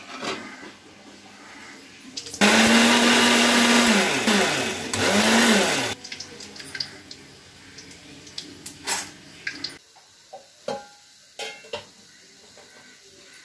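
Electric kitchen mixer grinder (mixie) grinding boiled tomato and onion into a paste. The motor runs for about two seconds, winds down, and is pulsed on again briefly before it stops about six seconds in. Afterwards there are light knocks and clinks of steel utensils.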